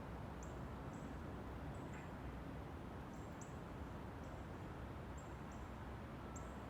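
Faint, very high, thin chirps, about a dozen short ones scattered irregularly, typical of a small bird calling, over a steady low background rumble.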